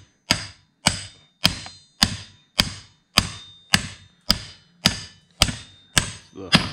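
Twelve evenly spaced ball-peen hammer blows, about two a second, each with a short metallic ring, on a steel upper control arm resting on an anvil. The blows are driving a new rubber suspension bushing into the arm by hand, without a press.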